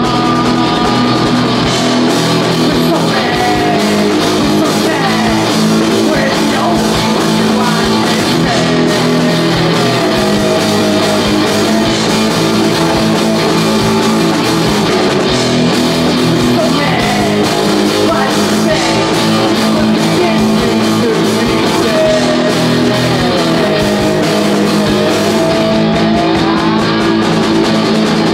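Live rock band playing loudly and without a break: electric guitar, bass guitar and a Ludwig drum kit, with a wavering melodic line over the top.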